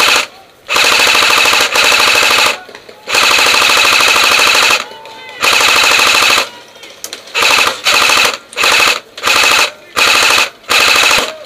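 Airsoft electric gun firing on full auto, its rapid shots blending into a buzzing rattle. A short burst comes first, then three long bursts of one to two seconds, then a run of about seven short bursts.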